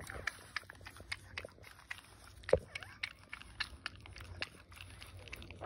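French bulldog mother licking her newborn puppy: irregular wet clicks and smacks of tongue and mouth. One short squeak, falling in pitch, about two and a half seconds in.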